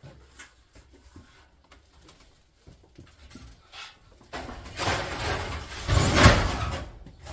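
Small knocks and clicks as metal parts of an electric hob are handled, then a louder scraping rush lasting a couple of seconds.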